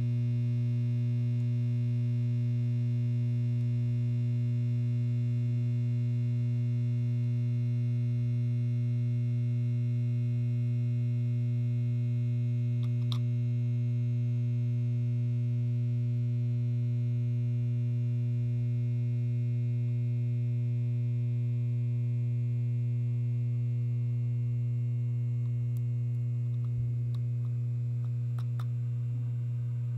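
Loud, steady hum and buzz of a 250 W high-pressure sodium (S50) ballast running a metal halide conversion lamp through its warm-up. A faint click or two is heard, and the hum eases slightly near the end.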